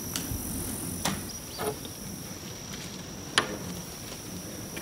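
A steady, high insect buzz, like crickets, with a few scattered knocks and taps from footsteps on old wooden boards; one sharper knock about three and a half seconds in is the loudest.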